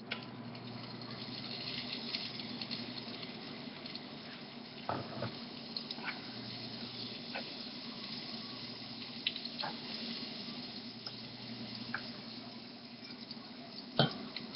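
Butter sizzling and crackling as it melts in a hot frying pan, a steady hiss with scattered small pops and a sharp click near the end.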